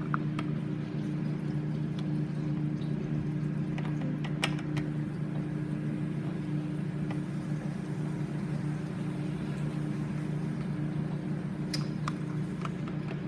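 A steady low hum with a faint noisy haze, and a few light clicks of plastic toy figures being handled on a glass tabletop.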